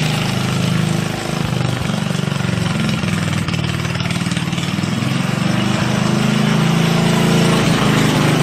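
Small engine of a Merry Tiller converted into a garden tractor, running steadily, with a slight dip in level about a second in.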